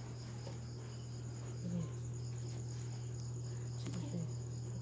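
Steady low hum of an electric stand fan's motor, with continuous pulsing cricket chirps above it. A few faint short squeaks come through about two and four seconds in.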